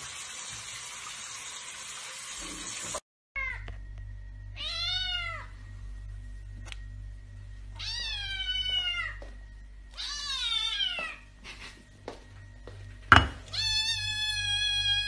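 Tap water running for about three seconds, then a black kitten meowing: three separate meows, each rising and falling in pitch, a sharp knock, and a longer meow starting near the end.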